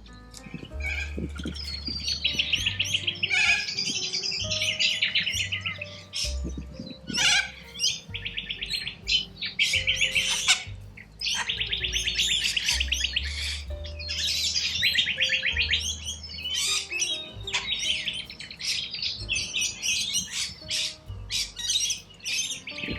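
Wild corellas screeching in harsh, rattling calls, one after another almost without a break, over background music with a steady bass line.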